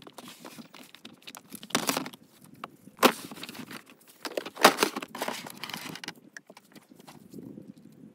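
Hard plastic storage cases being slid and set down in a vehicle's cargo area: scraping and a series of knocks and clunks, the loudest about three seconds in and another cluster near five seconds, with lighter clicks and rustling of straps between. It goes quieter near the end.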